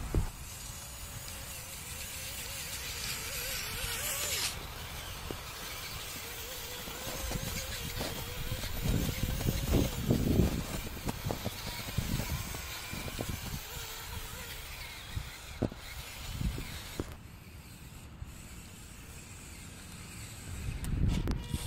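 Small electric motor of a 1/24-scale Losi Micro rock crawler running as it drives through snow, a faint thin whine over a hiss. Several low thumps and rumbles, loudest about halfway through.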